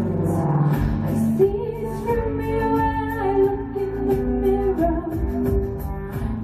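Live music: a woman singing long held notes into a microphone over sustained electronic keyboard chords.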